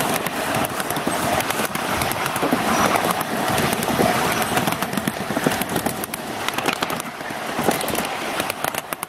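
Miniature ride-on railway cars rolling along the track: a continuous rattle of small steel wheels on rail, full of quick irregular clicks.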